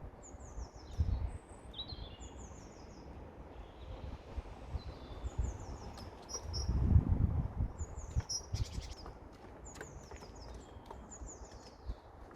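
A small songbird calling repeatedly, each call a short, high, quickly falling run of notes, coming every second or two. Low rumbling thumps come about a second in, and a louder, longer rumble comes around seven seconds in.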